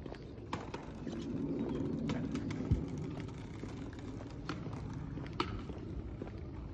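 Skateboard wheels rolling over brick paving: a low rumble that swells a second or two in, with scattered sharp clacks.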